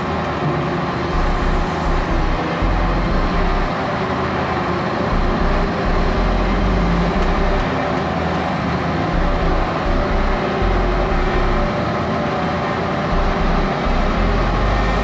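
Diesel-hydraulic power pack of a self-propelled modular transporter running steadily as the heavy transporter moves under load.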